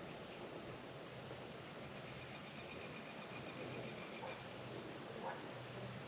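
Faint outdoor ambience: a steady high-pitched insect drone over a low background hiss.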